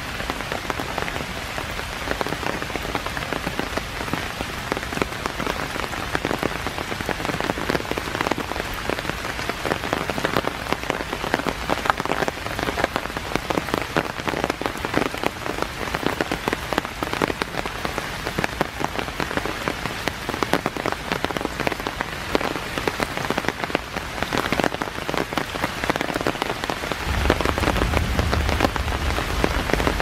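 Steady rain falling on forest leaves and a wet walkway, a dense patter of drops throughout. A low rumble comes in near the end.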